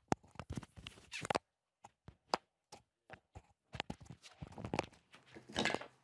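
Scattered footsteps and light knocks, with bursts of rustling as bedding and clothes are handled; the loudest rustle comes near the end.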